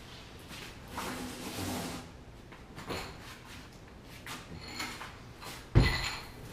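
A heavy wooden dining table being turned over: wood rubbing and knocking as it is shifted, then a heavy thud near the end as it comes down.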